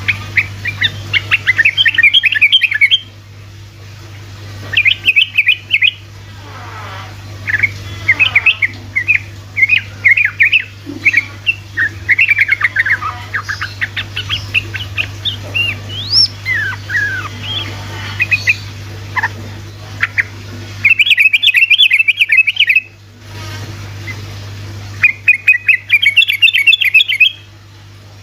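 Yellow-vented bulbul (trucukan) singing vigorously. Fast rolling chatter comes in phrases of about two seconds, broken by shorter whistled notes and glides. A steady low hum runs underneath.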